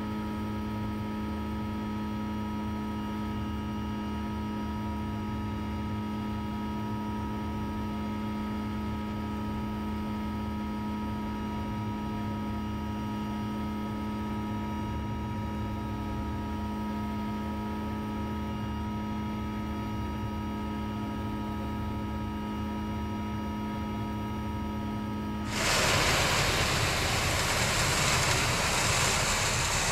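Cat 259D3 compact track loader's diesel engine and hydraulics running at a steady speed, heard from inside the cab as an even hum with a rumble beneath. About 26 seconds in, a louder, even rushing noise takes over.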